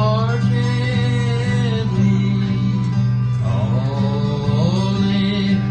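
Acoustic guitar playing a waltz, with a man singing over it in long, gliding notes.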